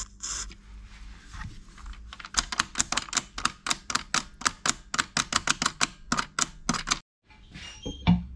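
A short hiss of contact-cleaner spray. Then a rapid run of sharp mechanical clicks, about four to five a second for several seconds, from a small switch in the turntable's wiring being worked back and forth to spread the cleaner. The clicking cuts off suddenly about seven seconds in.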